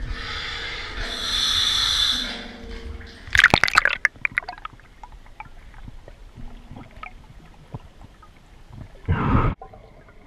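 Scuba diver breathing on a regulator, heard underwater: a hissing inhale through the regulator about a second in, then a crackling rush of exhaled bubbles near four seconds, scattered small ticks, and another short burst near the end.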